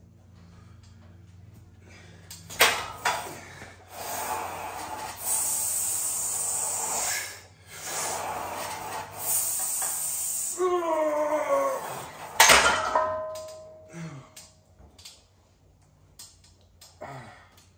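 Bench press with a plate-loaded barbell of about 245 lb. The bar clanks as it comes off the rack, two long forceful breaths mark two hard reps, and a strained groan falls in pitch. A loud metal clank follows as the bar is racked, with the iron plates ringing briefly.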